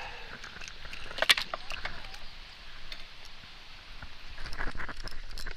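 Scattered small clicks and knocks of fishing tackle being handled in a kayak while a crappie is brought in, with a sharper cluster of clicks about a second in and more near the end.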